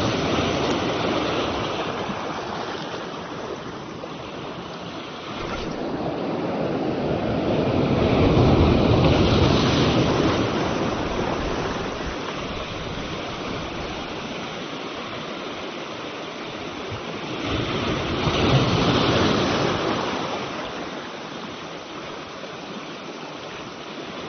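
Sea surf breaking and washing over shoreline boulders, a steady rush that swells in two big surges, about eight and eighteen seconds in.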